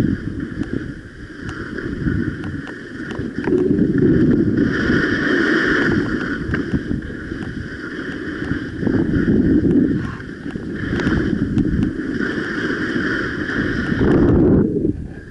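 Skis sliding and scraping over hard, wind-crusted snow on a downhill run, with wind buffeting the microphone; the noise swells and eases in waves with the turns.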